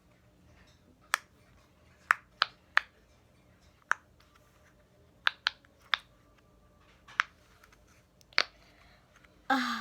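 Sharp clicks and taps from fidget toys being handled, about ten at irregular intervals, with a short louder rustling burst near the end.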